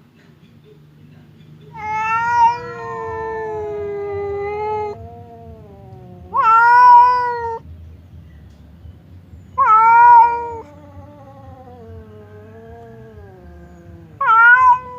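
Domestic cats yowling at each other in a hostile standoff: four loud, long, wavering caterwauls, the first and third trailing off into quieter drawn-out wails.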